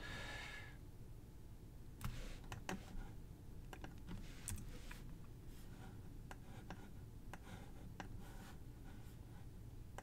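Quiet, irregular clicks of a computer mouse and keyboard, a few every second or two, over a low steady hum.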